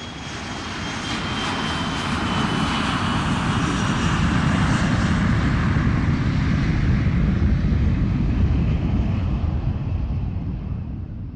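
Aircraft engine noise, steady and loud, with a faint high whine that slowly falls in pitch.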